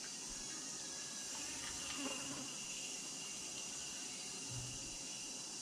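A steady high-pitched hiss, with brief faint voice-like sounds about two seconds in and again near the end.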